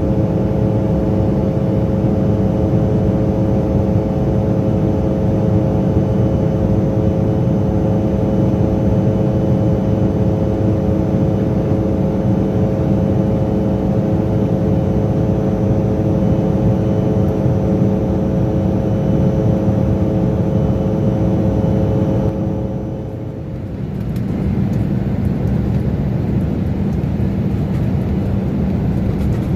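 Airliner cabin noise in flight: a steady engine and airflow roar with a drone of several steady tones. About 23 s in the sound dips briefly, the tones drop out, and a plain steady roar goes on.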